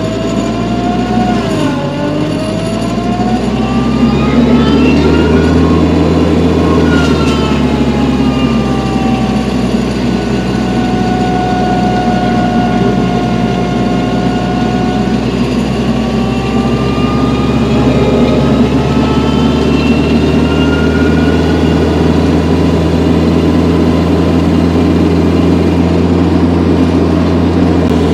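A vehicle engine running steadily, with a whine that slowly rises and falls in pitch over several seconds.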